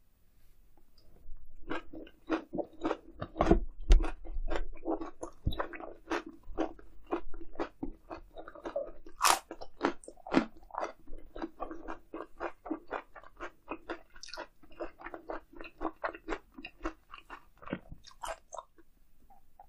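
Close-miked chewing and biting of grilled eel, a quick run of wet mouth clicks at about three chews a second that starts a couple of seconds in and stops shortly before the end.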